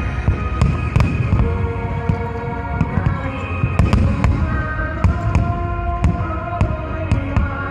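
Many fireworks shells bursting in quick, irregular succession, sharp cracks and booms over music with long held notes.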